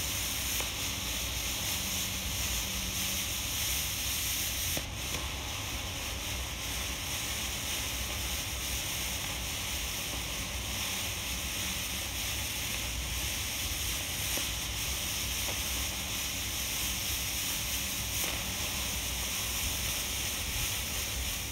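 Black smoke grenade burning with a steady hiss as it pours out smoke, over a low rumble of wind on the microphone.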